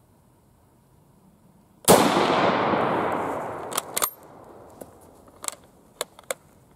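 A single rifle shot from an Argentine 1891 Mauser (7.65×53mm Argentine), sharp, with a long tail fading over about two seconds. It is followed by several short metallic clicks as the bolt is worked.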